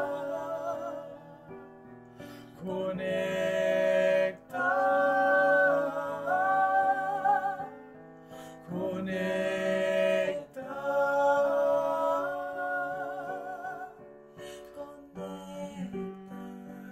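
Voices singing a slow melody with a digital piano accompanying. There are two long swelling phrases of held, wavering notes, with softer stretches between them and near the end.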